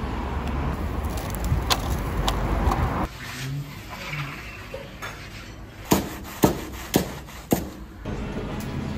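Food-preparation sounds in a busy street-food kitchen. First comes a steady low rumble with light knife scraping and clicks. This cuts off abruptly about three seconds in. A quieter stretch follows, with four sharp knocks about half a second apart.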